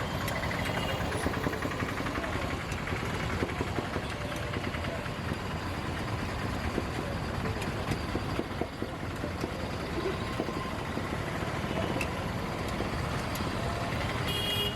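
Steady outdoor street noise led by a running vehicle engine idling, with scattered small clicks and clatter.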